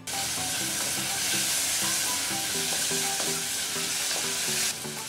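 Sliced carrots and onions sizzling in hot oil in a pot as they are stirred with a wooden spoon; the sizzle drops sharply near the end. Soft background music plays underneath.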